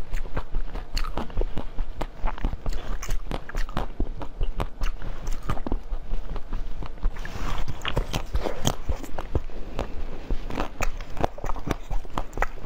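Crunching and chewing of frozen basil-seed ice: a rapid run of sharp cracks as the ice is bitten and ground between the teeth, growing denser about seven seconds in.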